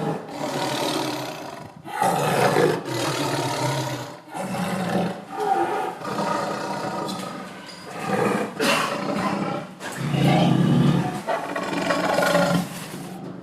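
An animal giving a run of loud, harsh calls, each one to two seconds long with short breaks between them.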